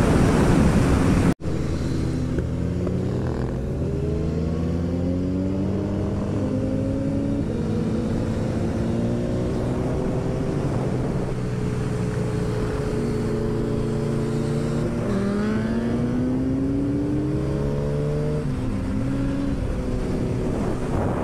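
Loud wind rush that cuts off abruptly about a second and a half in. Then a Suzuki Hayabusa's inline-four engine accelerates through the gears, heard from on board: its pitch climbs and drops back at each upshift, several times over.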